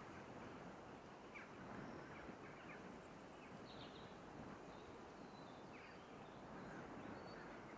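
Near silence: faint open-air ambience with a few brief, scattered bird chirps.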